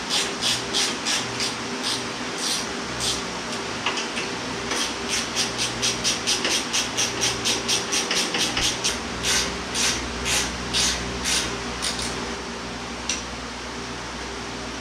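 Hand ratchet wrench being worked back and forth on the nuts of a leaf-spring axle mount, each swing a short rasping run of clicks, about two to three swings a second. The swings stop about 12 seconds in, and a single click follows a second later.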